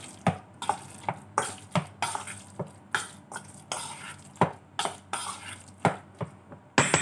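Metal spoon mixing minced pork in a stainless steel bowl: irregular clicks and scrapes of the spoon against the metal, about two or three a second.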